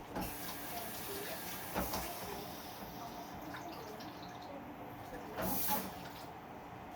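Noodles going into a hot pan of seafood sauce, sizzling and hissing, with a couple of knocks about two seconds in and a brief louder hiss near the end.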